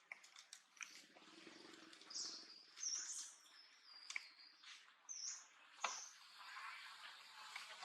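Faint high bird chirps, a few short upward-hooking calls with a thin high note between them, over scattered sharp clicks.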